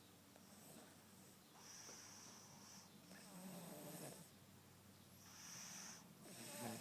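A sleeping girl snoring softly: two slow breaths, each a high hiss followed by a low, rough snore.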